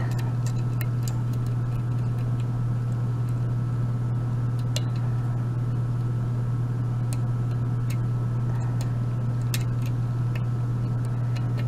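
A steady low hum runs throughout, with faint, irregular small metallic clicks and ticks of a lock pick and tension wrench working the pins of a Euro cylinder lock.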